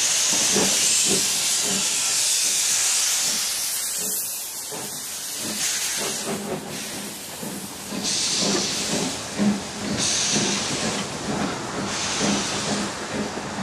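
Steam locomotives working a train: a loud hiss of escaping steam in the first few seconds, then a run of rhythmic exhaust beats with sharper gusts of steam about every one to two seconds.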